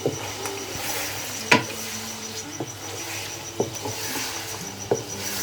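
Chicken and spices being stirred in a hot karahi, with a steady frying sizzle. The stirring utensil knocks against the pan about five times, loudest about a second and a half in.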